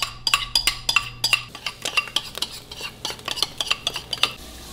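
A metal fork clinking and scraping against a bowl and frying pan in quick, irregular taps as pancake batter is scraped out. A little over four seconds in the clatter stops, leaving a soft steady frying sizzle.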